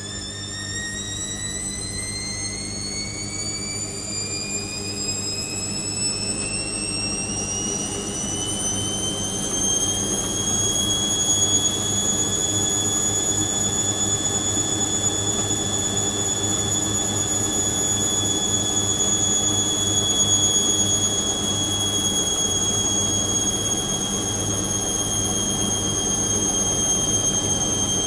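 Indesit IWC6165 washing machine spinning up: the motor's whine rises in pitch for about ten seconds, then holds steady at speed over a low hum.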